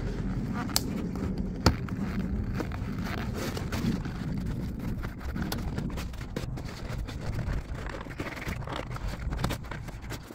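Plastic caravan locker door being prised apart by hand and with a small tool, its panel held in with silicone: scattered sharp clicks and creaks with some scraping, over a low outdoor rumble.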